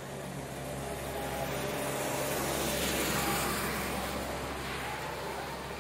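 A vehicle passing: a broad rushing noise swells to a peak about halfway through and fades away, over a steady low hum.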